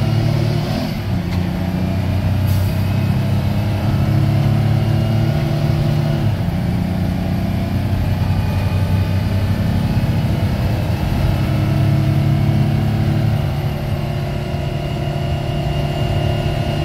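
Engine of a loaded GMC water truck running steadily under way, heard from inside the cab. Its pitch shifts about a second in and again around six seconds.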